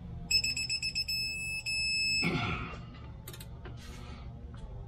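Electronic torque wrench beeping for about two seconds, a high tone that pulses and then holds. It signals that a flywheel bolt has reached the set torque. A short burst of noise follows.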